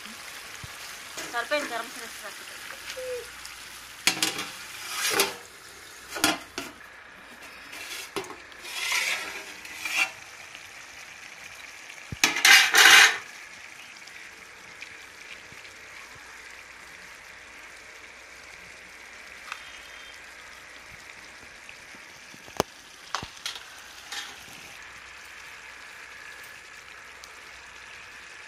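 Long slotted steel ladle stirring a large pot of simmering curry, scraping and knocking against the pot's metal sides in several strokes through the first half, the loudest a one-second scrape about twelve seconds in. A steady simmering hiss runs beneath, with a few light clicks later on.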